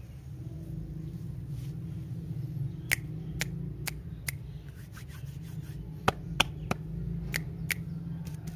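Hands handling plastic-wrapped lollipops, making about nine sharp clicks and taps from about three seconds in, over a steady low hum.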